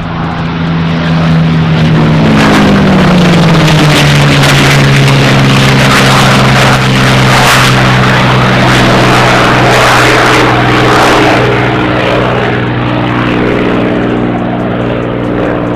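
Voodoo, a modified P-51 Mustang air racer, with its Rolls-Royce Merlin V-12 at full power on the takeoff run. The engine note drops in pitch as the plane passes, about two seconds in, then holds steady as it climbs away, fading toward the end.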